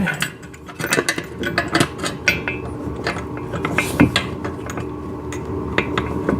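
Irregular metal clicks, clinks and scraping as a steel bolt and washer are worked through the bolt holes of a steel exercise-machine frame.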